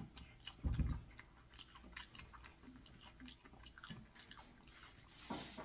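Close-up mouth sounds of biting into and chewing crispy fried chicken, the breading giving many small crackles. There is a soft thump about a second in and a short breathy hiss near the end.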